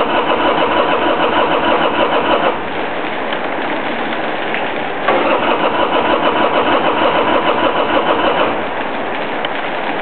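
1999 Harley-Davidson Sportster's V-twin being cranked by its electric starter in two attempts of about three seconds each, pulsing evenly without the engine catching: hard starting after the bike has sat unused for a couple of months.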